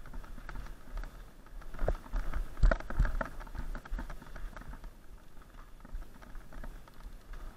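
Mountain bike riding over a rough, snowy dirt trail, heard from a camera mounted on the rider or bike: a steady patter of small knocks and rattles over the bumps, with a hard jolt about two and a half seconds in, over a low rumble of wind and rolling tyres.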